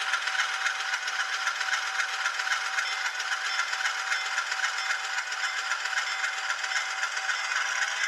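ESU LokSound 5 Micro sound decoder in an N-scale U25B diesel model playing its diesel engine sound through the tiny onboard speaker, a steady, fast, rattly chug as the locomotive rolls slowly along the track.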